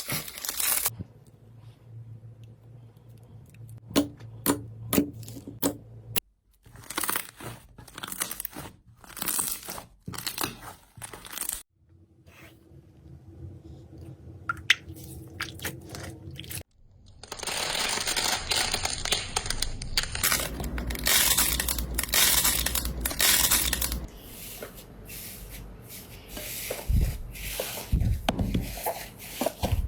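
Slime being squished, stretched and pressed by hand, giving many quick clicks and crackles. The texture changes abruptly every few seconds as one short clip follows another.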